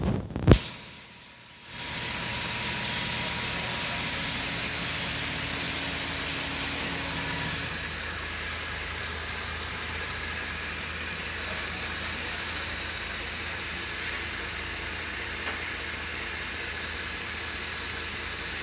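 Ford Expedition's 5.4-litre V8 idling steadily after repair of a cylinder 2 and 5 misfire, opened by a single sharp thump just after the start.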